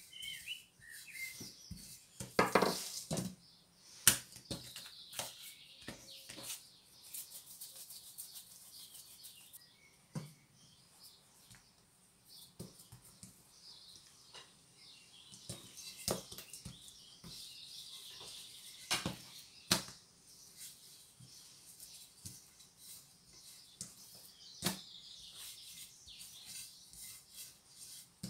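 Thin wooden rolling pin rolling out small balls of soft yeast dough on a table: a soft rubbing swish of the pin over the floured dough, broken by scattered light knocks and clicks as the pin and hands meet the table.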